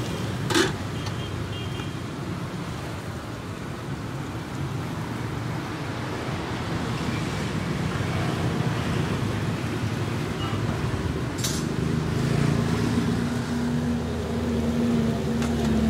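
Steady background noise of a street-side bánh xèo stall with its gas burners lit under the woks, and a sharp metal clink about half a second in, as an aluminium wok lid is set down; another sharp click comes about eleven seconds later.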